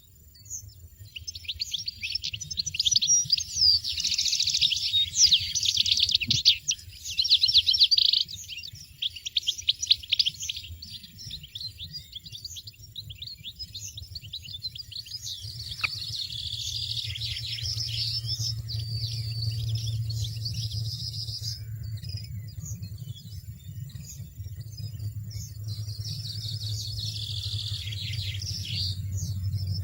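European goldfinches chirping: dense rapid runs of high chirps, loudest in the first third and again near the end. A low steady drone comes in about halfway through.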